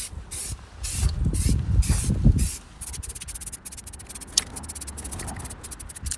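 Aerosol spray-paint can spraying in short repeated bursts, which come much faster and closer together after about three seconds in. A low rumble runs under it from about one to two and a half seconds in.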